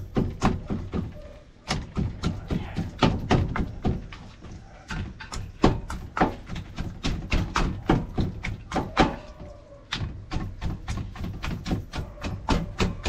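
Knife striking a cutting board in quick, irregular taps and knocks, several a second, while raw chicken is cut so the seasoning and oil reach the bone.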